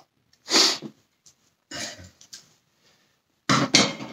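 A man coughing or clearing his throat in three short bursts, the last and loudest a double near the end.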